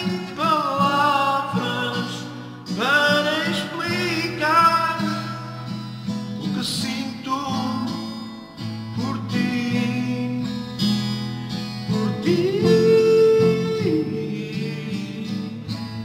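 A man singing in Portuguese while strumming an acoustic guitar; near the end his voice stops and the guitar chords ring on, fading.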